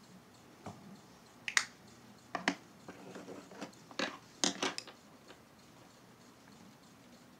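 Makeup cases and tools being handled and set down: a run of about ten sharp clicks and taps, the loudest about one and a half and two and a half seconds in.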